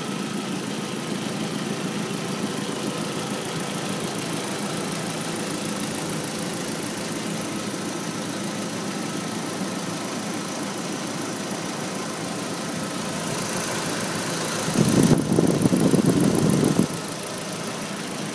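Car engine idling steadily on a B6 whose owner is chasing a rough idle, which he suspects comes from the secondary air injection (SAI) system. About two-thirds of the way through, a louder burst of low-pitched noise lasts about two seconds, then cuts off suddenly.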